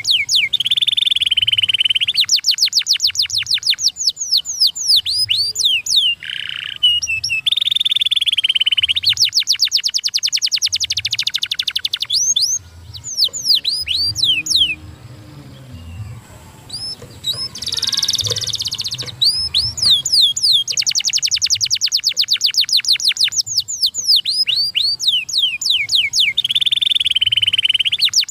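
Canary singing: fast trills of repeated falling notes alternate with held, buzzy rolls, with a quieter pause about halfway through.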